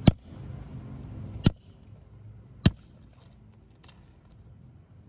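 Claw hammer striking a steel roof snake, a shingle nail-removal tool, wedged under an asphalt shingle to drive it against the roofing nails. Three sharp metallic blows, each about a second and a half apart, in the first three seconds, each ringing briefly.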